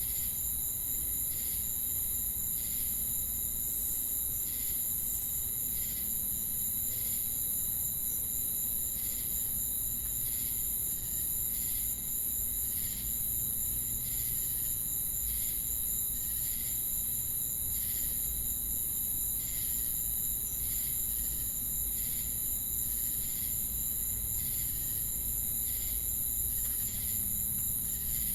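Chorus of crickets and cicadas: a continuous high-pitched insect drone, with a pulsing chirp repeating a little more than once a second over it.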